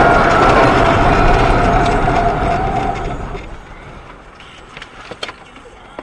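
Loud car noise with a steady tone running through it, fading away over the first three seconds or so, then a few faint knocks.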